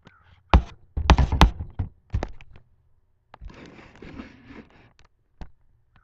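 Several sharp knocks and clunks, loudest about a second in, then about a second and a half of rasping noise and a final click: hands handling a walk-behind mower before starting it. The engine is not running.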